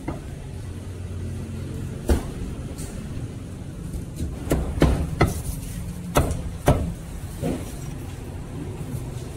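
Steady low rumble of road traffic, with a run of sharp knocks in the middle: a cleaver chopping roast meat on a wooden block.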